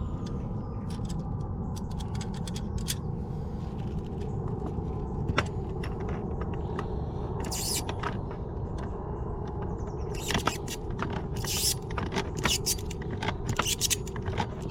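Steady low rumble, with scattered clicks and scrapes of a hand tool on a pipe fitting as it is tightened, coming thick and fast over the last few seconds.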